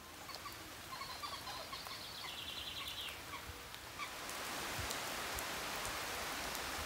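Heavy rain falling on foliage and a wet road, a steady hiss that grows louder about four seconds in. A bird calls faintly over the rain in the first few seconds.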